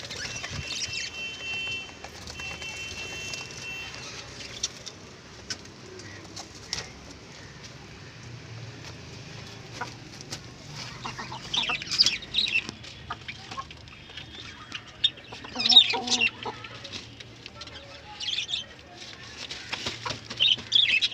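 Country chickens clucking and calling, with wings flapping; the calls come in louder bursts in the second half.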